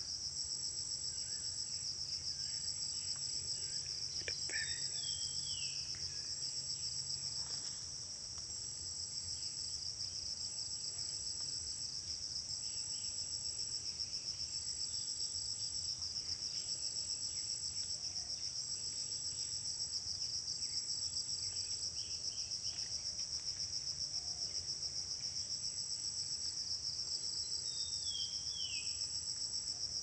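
Dense chorus of insects making a steady high-pitched trill. A higher note pulses on and off about once a second. A bird gives a short falling call about five seconds in and again near the end.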